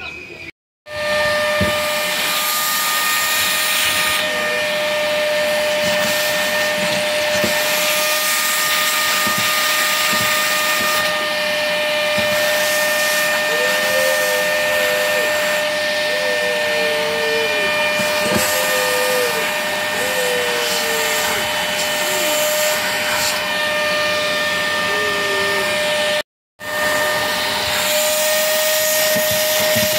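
Vacuum cleaner running steadily with a constant motor whine as its nozzle sucks crumbs and dirt off a gas stove top around the burner. The sound drops out abruptly for a moment near the start and again near the end, then carries on.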